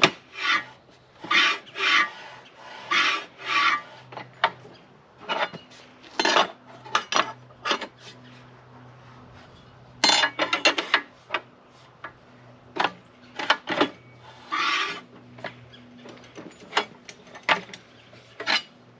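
Rip fence on a Ridgid 10-inch jobsite table saw being slid back and forth along its rails: repeated short scraping strokes with sharp clicks and clanks between them.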